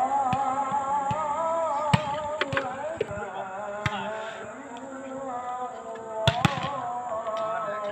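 Volleyball being struck by players' hands and forearms: a few sharp slaps, one about two seconds in and two in quick succession near the end. Beneath them a distant singing voice holds long, wavering notes.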